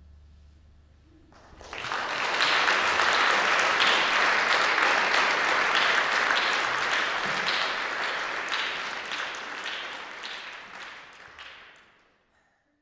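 The last guitar chord rings and fades, then the audience breaks into applause about a second and a half in, clapping steadily before it dies away near the end.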